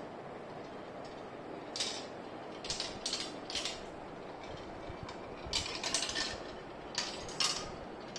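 Marbles rolling and clattering through a toy marble run: a string of irregular clicks and rattles, in two clusters, over a steady hiss.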